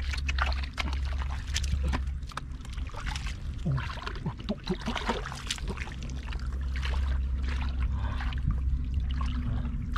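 Water splashing and sloshing in short irregular bursts, over a steady low rumble.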